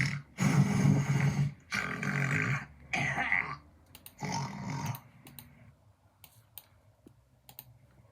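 A person snoring loudly in a quick run of five short snores, about one a second, followed by a few faint clicks.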